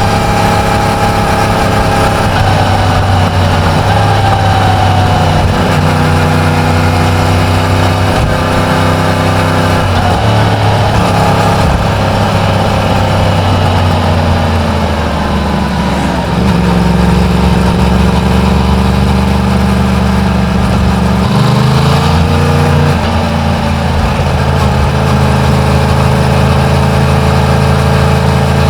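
Yamaha MT-10's 998 cc crossplane inline-four running on its stock exhaust while being ridden. The engine note holds fairly steady but steps to a new pitch several times as the revs change.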